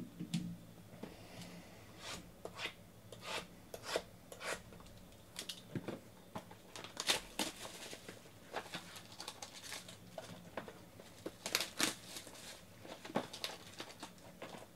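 Clear plastic shrink wrap being torn and crinkled off a sealed box of trading cards: a run of short, sharp rips and crackles.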